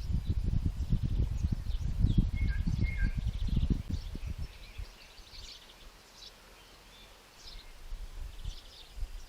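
Small birds chirping and calling, with a few clearer whistled notes about two to three seconds in. A gusty low rumble of wind buffeting the microphone runs under them in the first half, dies away in the middle, and starts to return near the end.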